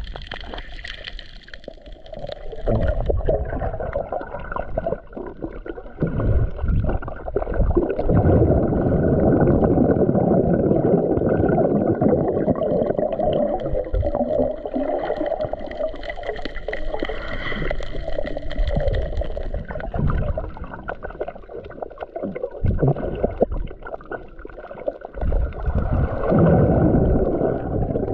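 Muffled underwater sound of moving water and bubbling, swelling and fading in surges, with faint steady high tones above it.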